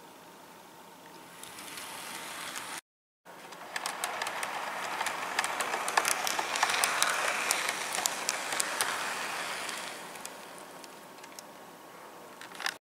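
A model freight train of hopper and cement wagons rolls past at track level, its metal wheels clicking over the rail joints. The sound grows louder, peaks about halfway through and fades as the wagons pass. The sound cuts out for a moment about three seconds in.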